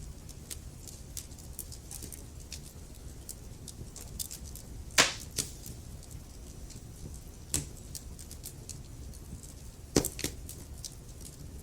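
Wood fire burning in a fireplace: a low steady rumble under frequent small crackles, with a few sharp, loud pops from the logs, the loudest about five seconds in and again about ten seconds in.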